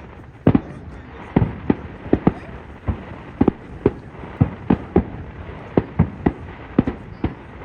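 Fireworks going off in a rapid, irregular volley of sharp bangs, roughly two a second, over a steady rumble.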